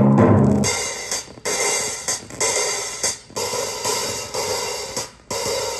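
Stereo demonstration LP playing on a Denon DP-7F turntable: a short burst of music ends about half a second in, then a loud hissing wash of sound comes in stretches broken by brief gaps.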